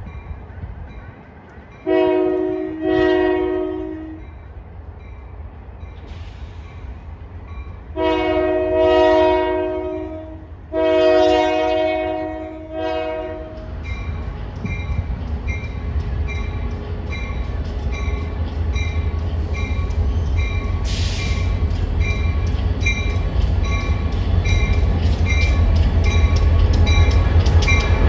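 Union Pacific diesel freight locomotive sounding its multi-note air horn: two short blasts, then two long ones, over a bell dinging steadily a little faster than once a second. From about halfway through, the locomotive's engine and wheels rumble louder and louder as it approaches and comes alongside.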